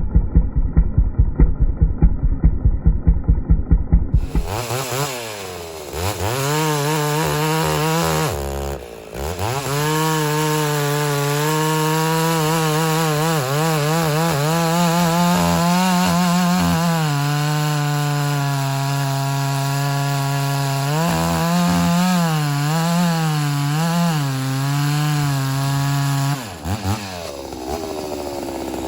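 Ported Homelite Super XL-925 82cc two-stroke chainsaw cutting red oak. It opens with a few seconds of low, regular thumps, about four a second, then revs up, dips briefly about nine seconds in, and runs at a high, steady pitch that wavers as it pulls through the cut. The engine drops off near the end.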